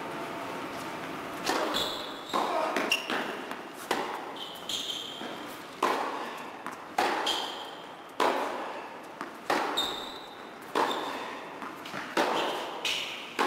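Tennis rally on an indoor court: sharp hits of racquets on the ball and the ball's bounces, roughly one every second, starting about a second and a half in and echoing in the large hall, with short high squeaks of shoes on the court between them.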